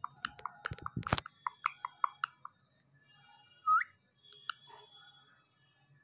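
Rose-ringed parakeet working a plastic ball with its beak: clicks and knocks, a run of short chirping notes, and about four seconds in a single rising whistle, the loudest sound.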